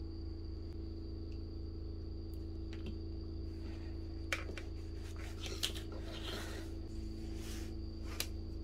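Hands handling insulated cables and alligator-clip leads, rustling, with three sharp clicks. A steady low hum and a faint high whine run underneath.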